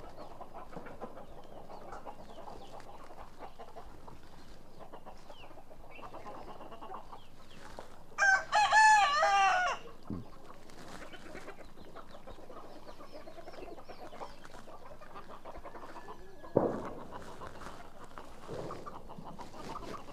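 Rooster crowing once, about eight seconds in, a loud call of about a second and a half over low clucking from a flock of chickens; a shorter call stands out near the end.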